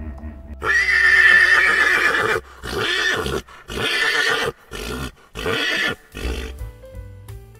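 Horse neighing: one long, loud whinny starting about half a second in, followed by about five shorter neighs broken by brief pauses.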